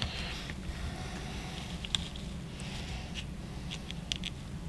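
Small scissors snipping through the leathery shell of a ball python egg: a few short, sharp clicks, the sharpest about two seconds in and several more close together near the end, over a steady low hum.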